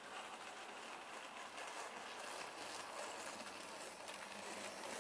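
Hornby OO gauge model of a GWR Dean Single steam locomotive running on the track with its coaches: a steady whirr from the motor and wheels with faint ticking, a little louder in the middle as it passes close.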